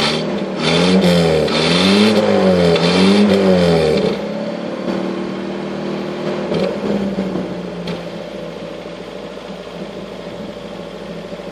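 Land Rover Series III petrol engine heard at the tailpipe, revved up and down a few times, then settling to a steady idle about four seconds in. It is running again after two years off the road, on a newly fitted electronic ignition.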